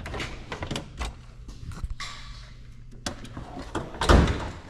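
Hand tools and snowmobile fuel-system parts being handled: scattered clicks and knocks, a short hiss about two seconds in, and a loud thump near the end.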